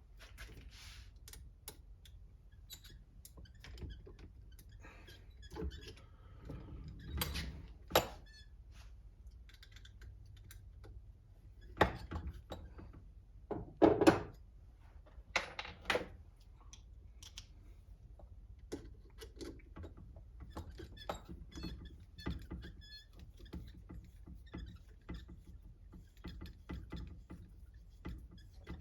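Small parts and hand tools clicking and knocking as a radio-controlled car is taken apart, with a few louder knocks about 8, 12 and 14 seconds in.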